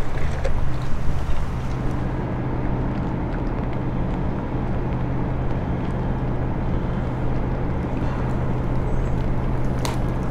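Tugboat diesel engines running with a steady low drone, and a sharp click near the end.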